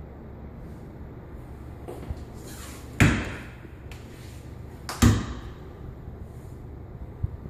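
Louvered bifold closet doors being swung shut, two loud knocks about two seconds apart as they close against the frame.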